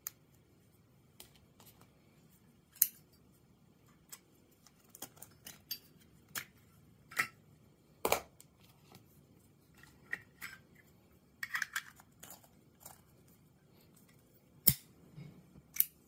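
Scattered metallic clicks and clacks of a Zippo case and its rechargeable arc-lighter insert being handled, the insert taken out of the steel case and fitted back in. The clicks come at irregular spacing, with sharper clacks about three seconds in, about eight seconds in and near the end.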